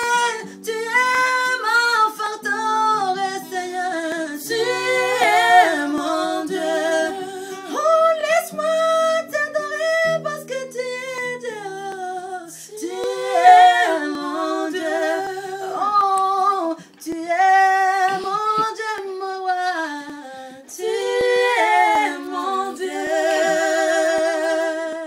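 A woman singing a slow worship melody without clear words, bending and holding notes with vibrato over long-held low notes. It ends on one long note with vibrato.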